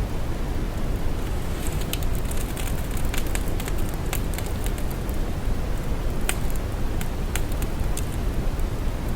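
Steady, deep brown noise with scattered soft crackles over it, the crackles coming more often from about a second and a half in.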